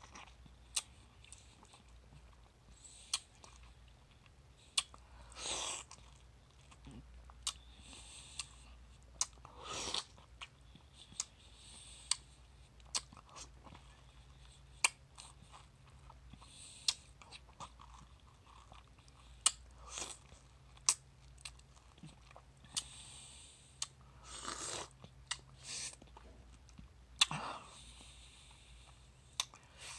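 Wet sucking and slurping on a peeled mango's flesh, close up, with many sharp mouth smacks and clicks and a few longer slurps.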